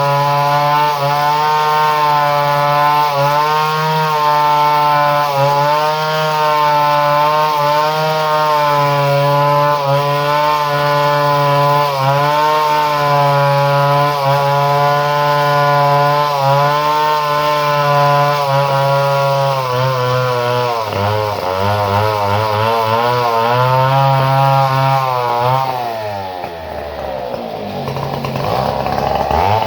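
Two-stroke chainsaw running at high revs with a slightly wavering pitch. Its speed swings more in the last third, drops sharply about 26 seconds in, then climbs again near the end.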